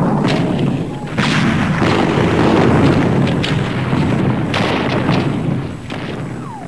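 Battle sound of naval gunfire and shell explosions: a continuous rumbling barrage with several sharp blasts, about a second in and again around three and a half and four and a half seconds.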